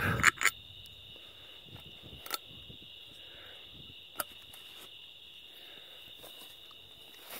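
Crickets chirping in a steady high-pitched trill. A few sharp knocks right at the start, and single faint clicks about two and four seconds in.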